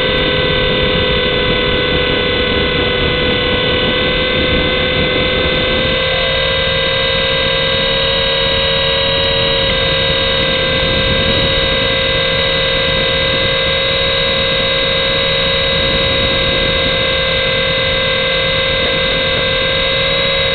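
Steady, loud whine of a Syma S107 toy coaxial helicopter's small electric motors and rotors in flight, heard through a camera mounted on the helicopter, over a heavy rushing noise.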